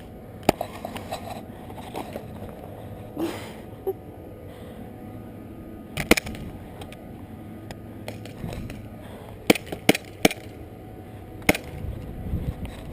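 A handful of sharp, separate clicks and cracks at irregular intervals over a faint background hiss, with a brief noisy rustle a few seconds in.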